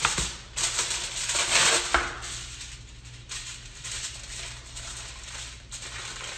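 Aluminium foil crinkling and crackling as it is pulled and folded by hand around a plastic-wrapped disc of pastry dough, loudest in the first two seconds and softer after.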